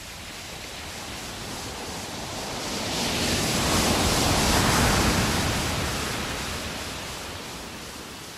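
A slow swell of rushing noise that builds to a peak about halfway through and then fades away, like surf washing in.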